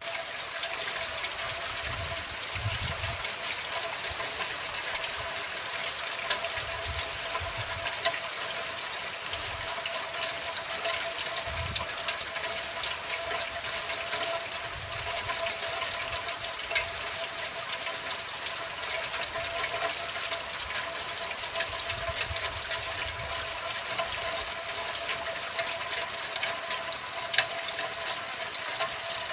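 Rain falling on a car's windshield: a steady hiss of drops with small ticks scattered through it, over a faint steady hum.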